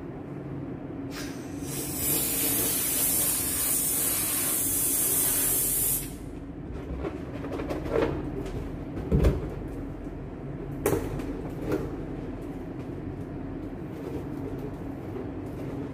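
Helium hissing from a tank's fill nozzle into a balloon for about four seconds, then cutting off sharply. Short handling noises follow as the inflated balloon is tied, with a thump about nine seconds in, over a steady low hum.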